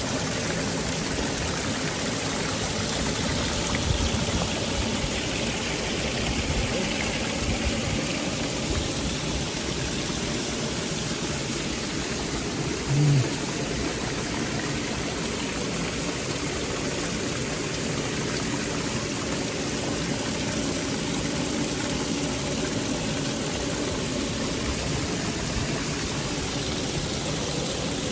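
Waterfall and stream water rushing in a steady, even hiss, with one short low thump near the middle.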